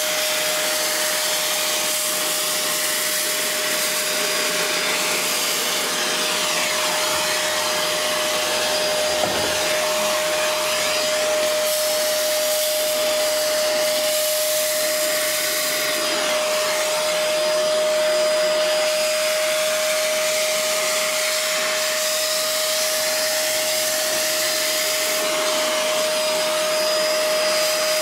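Vacuum cleaner running steadily with a constant whine, its hose nozzle sucking up loose model-railway ballast from along the track.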